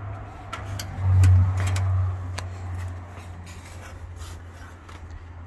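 A low, steady engine drone that swells for about a second near the start, with a scattering of sharp clicks and taps over it.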